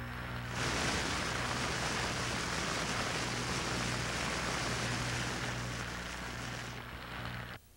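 A steady, dense rushing noise over a low electrical hum. It starts about half a second in and cuts off abruptly near the end.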